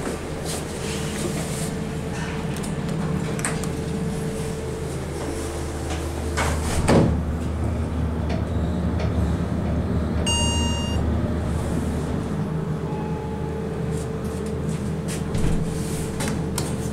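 Inside a Montgomery hydraulic elevator car during a ride: a steady low hum of the running car with small clicks, a thud about seven seconds in, and the car's chime dinging once a little after ten seconds.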